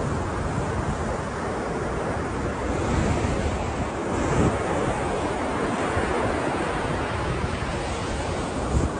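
Ocean waves washing in a steady rush of surf, swelling slightly a few times.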